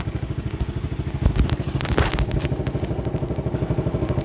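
A vehicle engine idling steadily close by, with a fast, even pulse, and a few sharp clicks and knocks over it, the loudest about a second and two seconds in.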